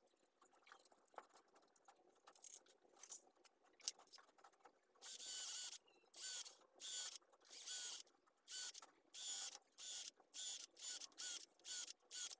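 Faint knife clicks and scrapes on wood, then from about five seconds in a cordless drill boring into a small block of wood, its motor whining in short on-off bursts a little over two a second as the trigger is pulsed.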